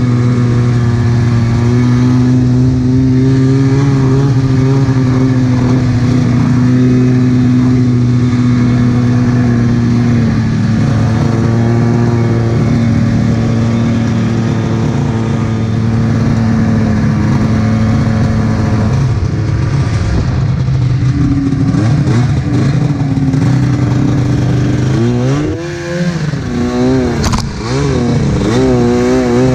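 Arctic Cat F7 snowmobile's two-stroke twin engine, fitted with a D&D aftermarket pipe and a Jaws silencer can, running at steady high revs. About 25 seconds in, the revs rise and fall repeatedly as the sled carves through the snow.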